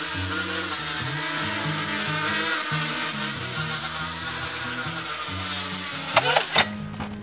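Background music with a bass line stepping between notes under a dense, bright, gritty upper layer, with a brief sweeping sound about six seconds in.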